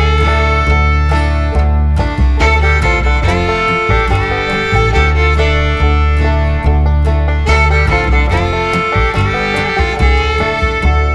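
Background bluegrass-style music with fiddle over plucked guitar and a steady beat.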